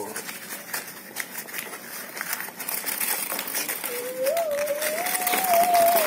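Brown paper wrapping crinkling and rustling as it is unfolded by hand from around a small bird. In the last two seconds a clear, wavering single tone comes in over the rustling.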